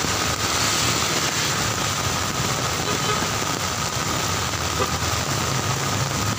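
Heavy rain falling on a city street while cars and a delivery truck drive through the wet road: a steady hiss of rain and tyre spray under the low rumble of passing engines.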